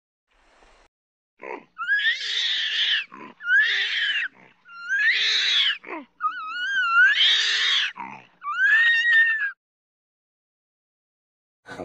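Orangutan giving a string of about six high-pitched cries, each about a second long, some rising and some wavering in pitch, with short breaths between them. A lower, rougher call starts just at the end.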